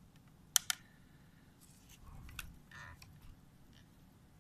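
Sharp clicks and soft handling noises from dissecting instruments being worked over the specimen. There are two quick clicks just over half a second in, then scraping and rustling with a further click a couple of seconds in.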